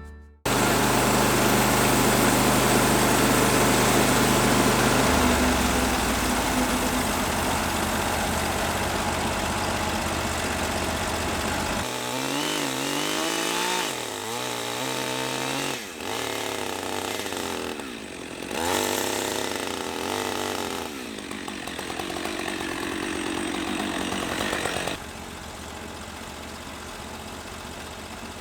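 Portable band sawmill running, its engine driving the blade through a maple log. The engine holds a steady note at first, then wavers in pitch under load about halfway through.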